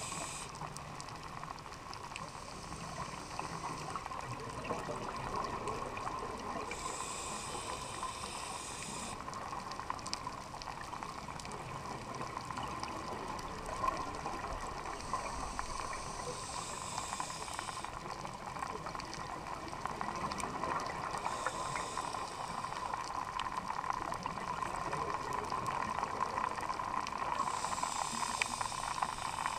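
Scuba regulator breathing heard underwater: a steady muffled hiss, with a rush of exhaled bubbles venting from the regulator three or four times, several seconds apart.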